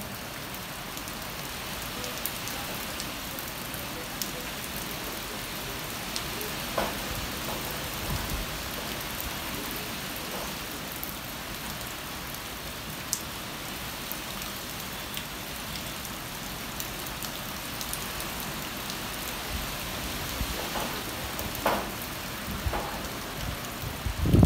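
Steady rain falling on trees, leaves and wet ground, with occasional sharp ticks and a few low thumps near the end.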